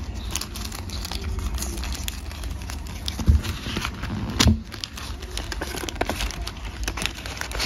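Paper envelope handled and torn open by hand: a steady crackle of crinkling, rustling paper, with two louder thumps in the middle.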